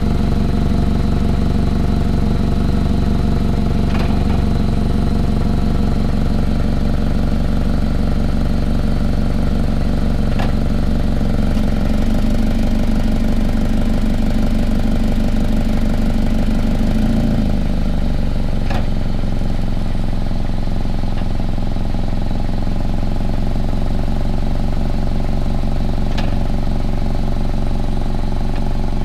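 2006 Toyota Camry engine idling, its exhaust loud and close. The engine speed rises a little about twelve seconds in and drops back near eighteen seconds, with a few faint ticks scattered through. The owner suspects an exhaust leak or a clogged catalytic converter.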